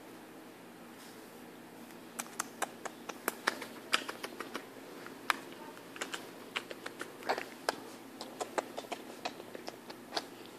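A run of light, irregular clicks and taps, several a second, starting about two seconds in.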